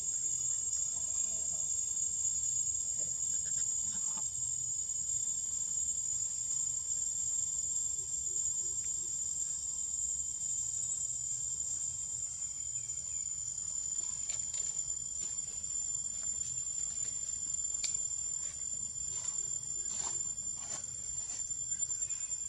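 Steady, high-pitched chorus of insects trilling without a break, with a few faint clicks in the second half.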